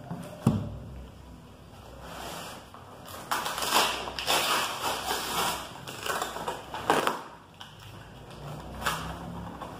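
A heavy boxed book set down on a table with a thump about half a second in, then a cardboard shipping box handled and its packing tape picked at and peeled, giving crackling and scraping that is loudest from about three to seven seconds in.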